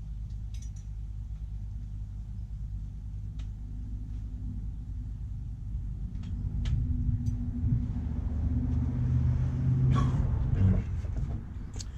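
Low rumble of a vehicle engine running nearby, swelling louder in the second half and easing just before the end, with a few light metallic clicks of hand tools.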